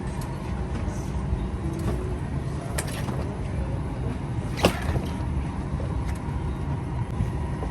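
Steady low rumble of an airliner cabin's machinery and ventilation, with two sharp clicks, the second louder, about three and four and a half seconds in.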